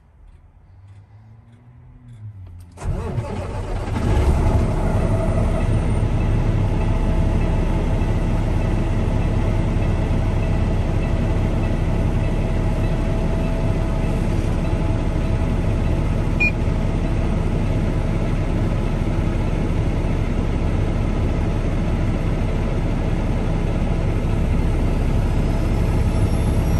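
Peterbilt 579's Cummins diesel engine being started: a short spell of starter cranking, then the engine catches about three seconds in, rises quickly and settles into a steady idle with a faint turbocharger whine, heard from inside the cab.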